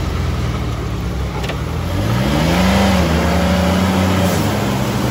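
Jeep Wrangler engine given gas under load in mud. It runs steadily, then revs up about two seconds in, holds the higher pitch, and drops back near the end.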